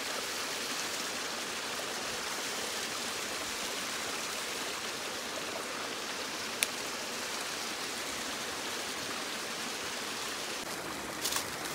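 Mountain stream rushing steadily over rocks, with a single sharp click a little past halfway and a few more clicks near the end.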